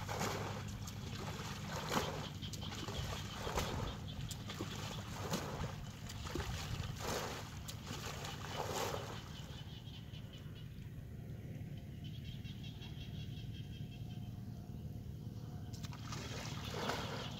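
Water splashing as a plastic bucket is dipped into a flooded paddy and emptied, a splash every couple of seconds. The splashes stop a little past halfway, leaving a quieter trickle over a low steady rumble, and start again near the end.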